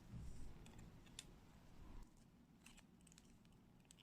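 Near silence, with a few faint, light clicks of a small screwdriver and tiny parts being handled while the screws inside a smartphone are undone.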